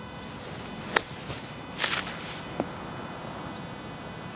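Golf chip shot with a 58-degree lob wedge: one sharp click of the clubface striking the ball about a second in, then a fainter brushing sound, over steady outdoor background noise.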